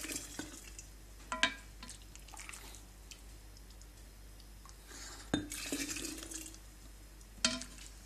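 Brine ladled from a metal pot into a glass jar: clinks of the ladle about a second and a half in and again near the end, and a short splash of pouring liquid a little past the middle.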